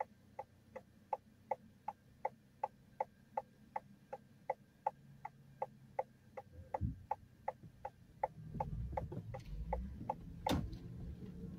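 Steady ticking heard from inside a car waiting at a traffic light, about three even ticks a second. About eight seconds in the low rumble of the car's engine and tyres rises over it, and a single sharp click sounds about ten and a half seconds in.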